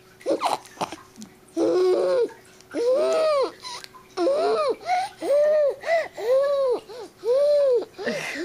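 A baby's excited babbling: a string of high-pitched vocal squeals, each rising and then falling in pitch, coming about once a second.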